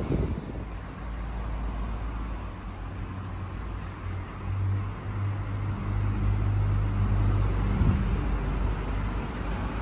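Low steady rumble of a motor vehicle engine, strongest from about halfway through, over wind noise on the microphone.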